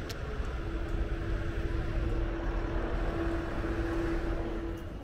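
Steady low rumble of street traffic, with one vehicle engine's steady hum that fades out just before the end.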